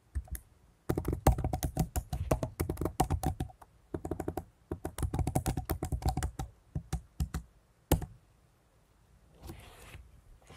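Quick typing on a computer keyboard in two fast runs of keystrokes, entering a command, then one last separate keystroke about eight seconds in.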